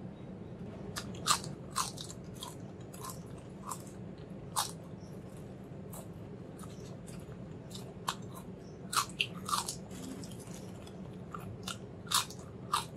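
Thin potato chips crunching as they are bitten and chewed close to the microphone: irregular sharp crunches, coming in quick clusters about nine seconds in and again near the end.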